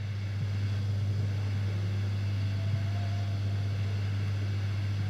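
Steady low electrical hum with faint background noise, unchanging throughout.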